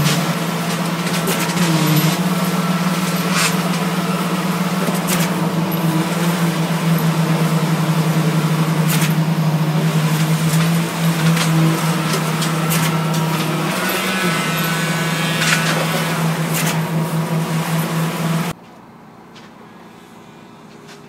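Heavy machinery at a concrete pour running steadily with a low, even hum and scattered clanks and knocks, then cutting off abruptly near the end.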